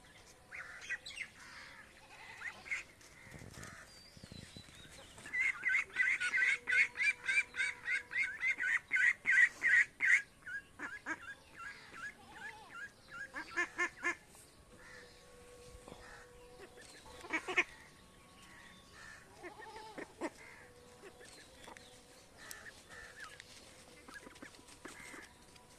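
Domestic ducks quacking: a loud run of rapid quacks, about four a second, lasting some five seconds, then a fainter run and a few scattered quacks.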